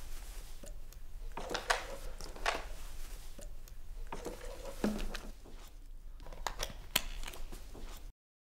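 Thin plastic water bottle crinkling and crackling in the hand as it is lifted and drunk from: irregular sharp crackles and clicks. The sound cuts off suddenly near the end.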